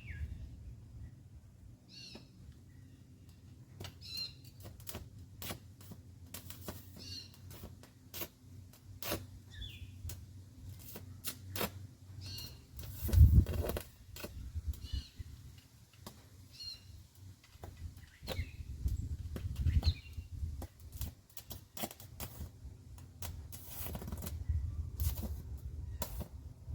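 Aluminum stick-welding rod arc sputtering and crackling in irregular pops with the machine turned down, not running a steady bead. A heavy thump comes about halfway through, and short chirps recur every couple of seconds in the background.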